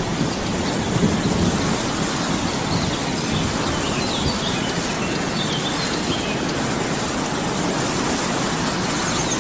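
Steady rain, with a few faint bird chirps about three to six seconds in.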